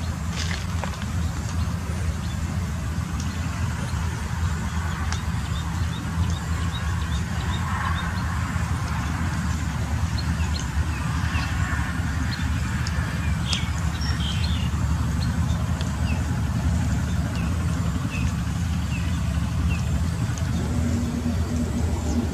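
A steady low hum of a running engine or motor, with scattered short high chirps over it. A slightly higher steady tone joins the hum near the end.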